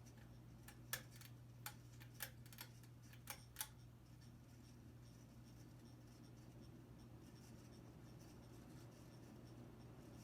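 Hunter Low Profile V ceiling fan running with a steady low hum; the owner notes bearing noise from it at every speed. About six sharp, irregular ticks come between one and four seconds in.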